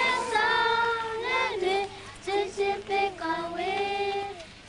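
Children singing a song, holding long notes that step between a few pitches.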